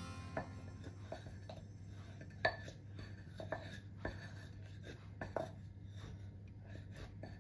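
Wooden pestle pounding in a clay som tam mortar: dull irregular knocks, about one or two a second, with one louder knock about two and a half seconds in.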